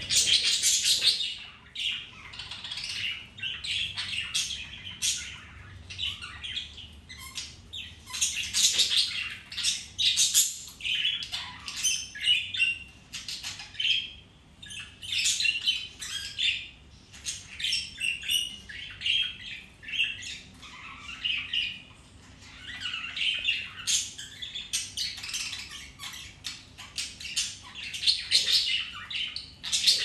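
Budgerigars chattering: a continuous run of quick, high chirps and warbling notes.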